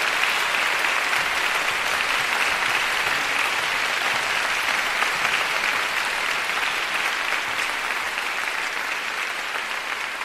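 Concert audience applauding steadily, the clapping easing off slightly near the end.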